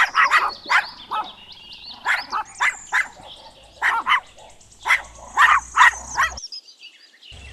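A puppy yapping in short, high barks, a dozen or so in irregular bunches, which stop about six seconds in.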